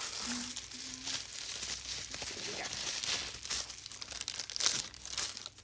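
Crinkling and rustling of packaging material being handled and pulled apart, with sharp crackles and some tearing, as items are taken out of a package.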